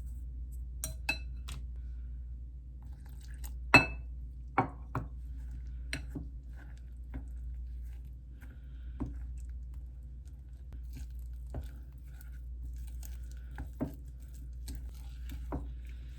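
Dishes and utensils clinking and knocking now and then, about a dozen separate taps; the loudest, about four seconds in, is a sharp ringing clink like glass or ceramic being struck. A steady low hum sits underneath.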